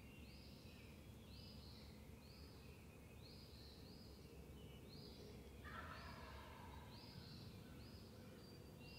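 Wild turkey gobbler gobbling once, a faint rapid rattling call about two-thirds of the way in, over a small bird's high chirps repeating steadily.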